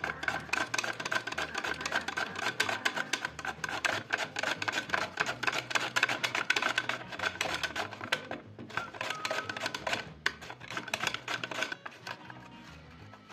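Zucchini being slid rapidly back and forth across the blade of a plastic mandoline slicer, a fast run of crisp scraping cuts as the vegetable is julienned and sliced, stopping near the end.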